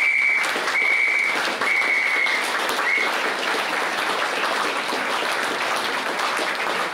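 Audience applauding, a dense steady clapping, with four short high whistles over the first three seconds.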